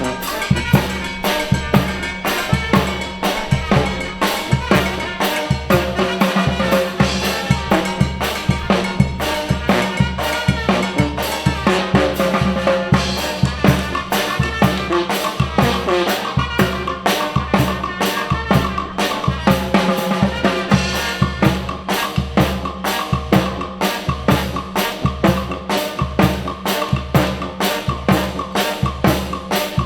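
Costa Chica banda music: a brass band playing a melody over a steady bass drum and snare beat.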